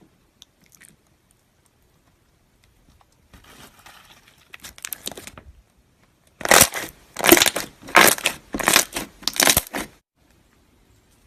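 Slime being squeezed and worked: soft crinkling first, then about three and a half seconds of loud, crackly squelches coming roughly twice a second.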